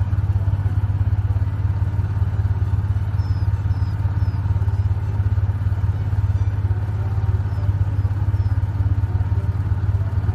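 An engine running steadily with a low, even drone and fast regular pulsing, which cuts off suddenly at the end.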